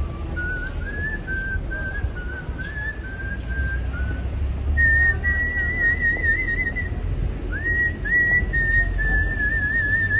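A man whistling a melody, art-whistling style: a run of short notes, then long held notes with a wide vibrato and two quick upward slides about three-quarters of the way in.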